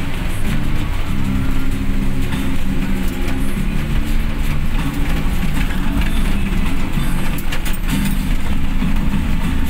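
Cabin noise of a van driving on a wet road in rain, with music playing from the car stereo.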